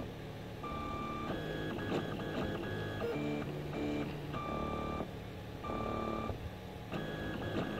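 Stepper motors of a Prusa-clone 3D printer whirring through print moves: a string of steady tones that jump to a new pitch every half second or so as the axes change speed and direction.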